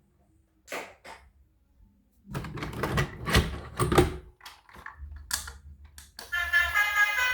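Clicking and clattering of plastic toys and packaging being handled: a couple of clicks about a second in, then a dense run of knocks and rattles, then a few more clicks. A tune starts near the end.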